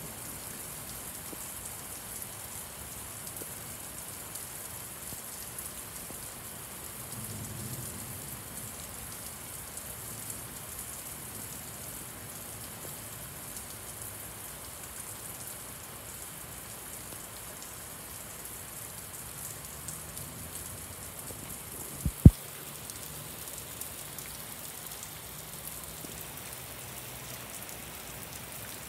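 Very heavy rain falling steadily, a dense even hiss. About two-thirds of the way through, two sharp knocks in quick succession stand out loudly above the rain.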